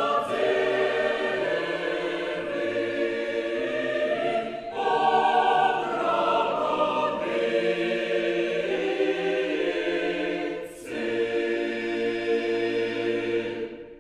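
Mixed chamber choir singing an Orthodox sacred piece a cappella in several voice parts, with two brief breaks for breath about five and eleven seconds in. The final chord is released near the end and dies away in the hall's reverberation.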